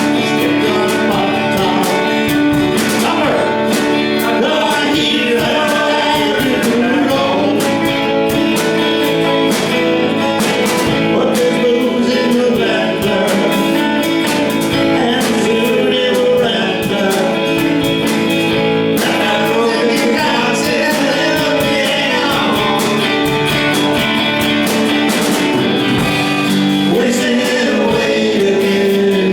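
A live band rehearsing a song: guitars playing with a singer's voice.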